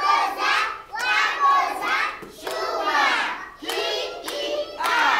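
A group of young children chanting together in a rhythmic, sing-song phrase, with a few sharp hand claps mixed in.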